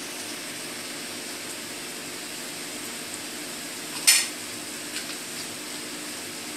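Pasta and vegetables sizzling steadily in a frying pan as vinegar is added, with one short sharp clatter of the spatula against the pan about four seconds in.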